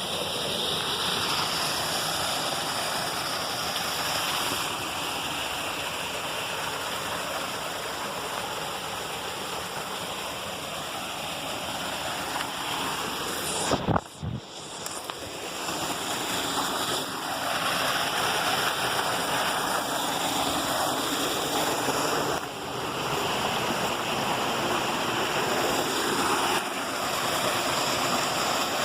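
Water rushing over cascades: a steady, even hiss of running water. About halfway through there is a sharp click and a brief drop in level before the water sound returns.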